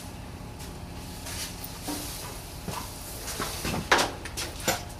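Scattered clanks and knocks of metal tools and parts being handled and set down, about half a dozen separate strikes with the loudest a little before four seconds in.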